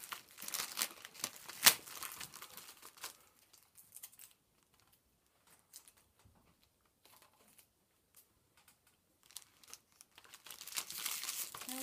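Shiny foil and cellophane wrapping on a giant Kinder Surprise chocolate egg crinkling as hands handle it, in sharp crackles for about three seconds. Then comes a pause of several nearly quiet seconds, and the crinkling starts again near the end.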